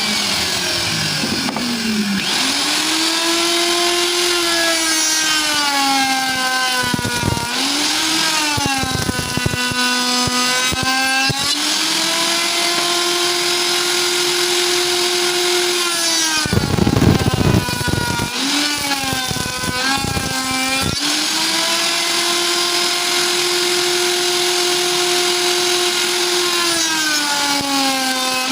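Electric wood router running at high speed, its motor whine sagging in pitch each time the bit bites into the wood and rising again as it frees up. A burst of rough cutting noise comes a little past the middle.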